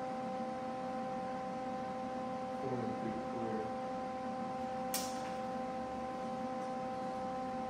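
Steady electrical hum made of several high, even tones, with a brief low murmur of a voice about three seconds in and a single sharp click about five seconds in.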